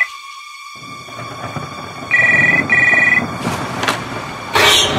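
A telephone ringing with a British-style double ring, two short bursts about two seconds in, over a faint low rumble and a steady high tone. A loud burst near the end leads into the music.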